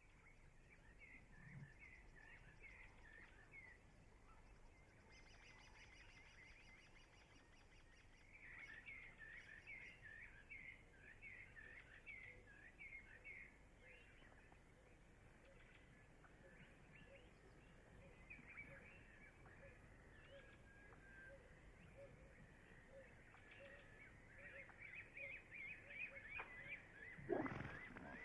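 Faint bird calls: quick runs of chirping notes repeating on and off, with one louder call sliding down in pitch near the end.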